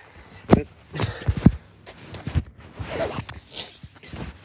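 A handheld phone being handled and moved by the person filming: a string of irregular bumps, knocks and rustles against the microphone.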